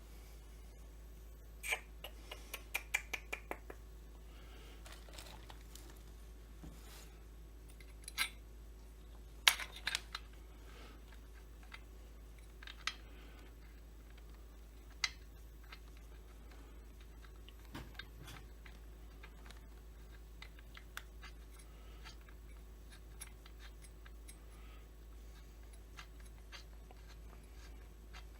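Small chainsaw parts and hand tools clicking and tapping as they are handled during assembly: a quick run of clicks about two seconds in, a few sharper knocks around eight and ten seconds, then scattered faint ticks.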